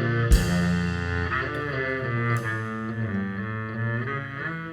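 Live rock band music with no singing: sustained, changing guitar and bass notes over drums, with a cymbal hit about a third of a second in and another a little after two seconds.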